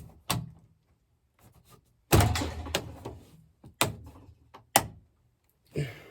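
A string of knocks and clanks as sections of dryer vent duct are worked back together, the loudest a heavy thump about two seconds in that rings on for about a second, followed by three sharper knocks about a second apart.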